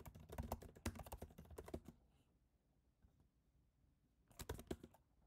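Typing on a computer keyboard: a quick run of keystrokes for about two seconds, then a pause, then a short cluster of key presses near the end.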